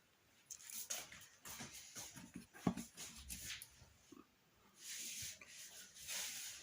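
Faint handling sounds of boiled garlic cloves being peeled by hand: scattered small clicks, the sharpest about two and a half seconds in, and two short papery rustles near the end.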